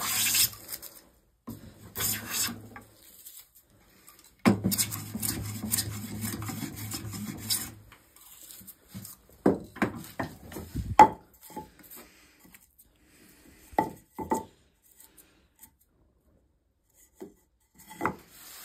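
Hand plane shaving a spruce stool leg clamped in a vise: a few rasping strokes, the last one longer, then a string of sharp wooden knocks and clicks as tools are set down and the vise is opened.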